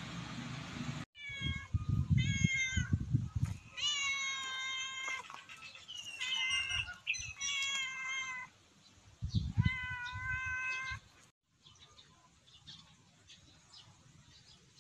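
Cat meowing repeatedly, several drawn-out meows in a row.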